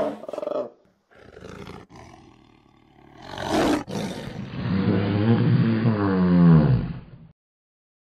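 Dinosaur roar sound effects: a roar fading out just after the start, a quieter rough growl, then a sharp loud roar about three and a half seconds in, running straight into a long drawn-out cry whose pitch wavers and falls before it cuts off suddenly about seven seconds in.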